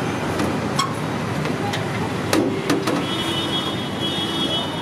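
Busy street ambience with steady traffic noise, broken by a few sharp clicks in the first three seconds and a steady pitched tone over the last two seconds.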